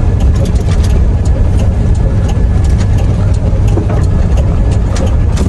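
Loaded truck driving, heard from inside the cab: a steady low engine-and-road rumble with scattered sharp clicks throughout.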